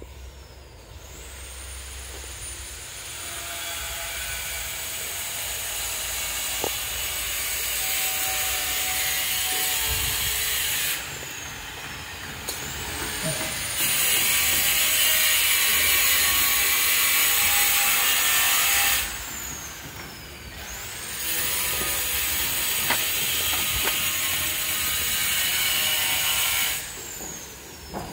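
A handheld power tool runs with a loud, rough, high-pitched sound. It is switched off and on again twice, with a whine as the motor spins down and back up.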